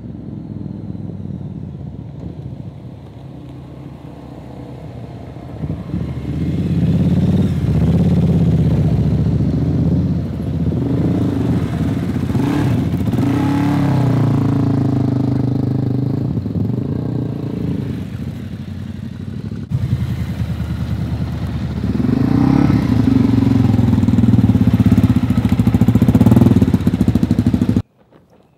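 Loaded dual-sport motorcycles riding past one after another on a dirt forest track, their engines revving and growing louder as each comes close and goes by. Two main pass-bys, the second near the end, and the sound cuts off suddenly just before the end.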